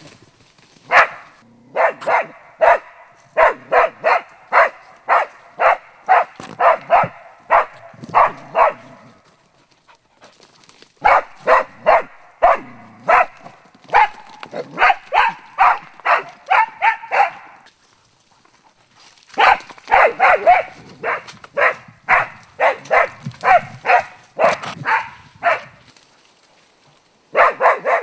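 Young springer spaniel barking steadily at wild boar, about two barks a second, in bouts of several seconds broken by short pauses: a boar dog's bay on the boar.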